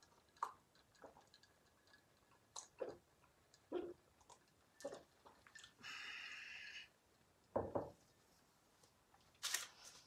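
Faint close-up eating and drinking sounds: a sip from a glass at the start, then scattered small mouth clicks, smacks and taps. There is a hiss about a second long about six seconds in, a single louder sound shortly after, and a cluster of louder sounds near the end as he goes for the noodles.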